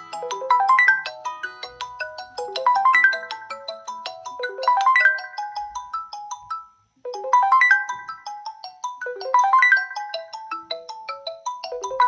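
Smartphone ringing tone: a quick melody of short pitched notes in phrases that repeat about every two seconds, broken by a brief gap about seven seconds in.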